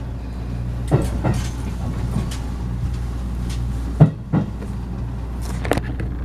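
Cabin of a moving HB-E300 series hybrid train: a steady low drone from the running train, with sharp clunks about a second in, at about four seconds and near the end.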